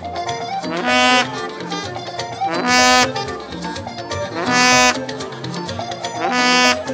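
Band music at a party. A bright, loud note or chord of about half a second sounds about every two seconds over a steady, busier accompaniment.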